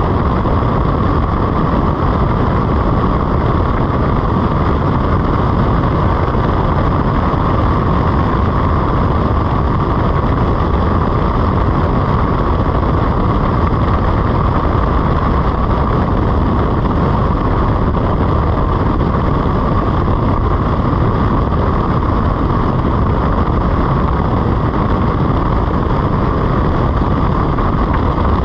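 BMW F850GS motorcycle being ridden at a steady speed: the parallel-twin engine running evenly under road and wind rush, with no change in pace.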